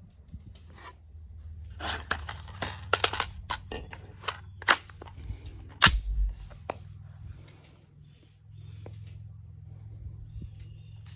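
Rifle magazine being loaded: a run of sharp metallic clicks as cartridges are pushed in one by one, then one heavier knock a little after the middle. A faint steady high-pitched insect trill runs underneath, and a low steady hum sets in later.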